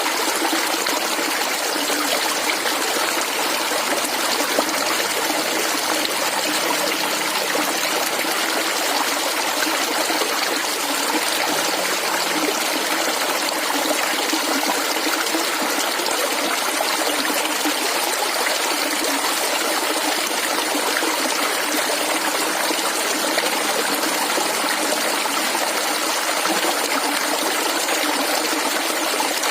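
Shallow water flowing and gurgling steadily over stones, a continuous trickling rush with no let-up.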